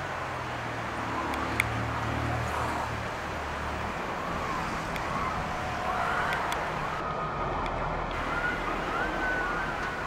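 Whitewater rapids of the Teesta River rushing steadily, with short high wavering calls heard here and there over the water.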